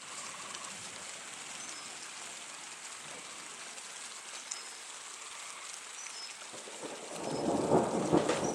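Steady rain falling on a pond, with a roll of thunder that builds about seven seconds in and becomes the loudest sound.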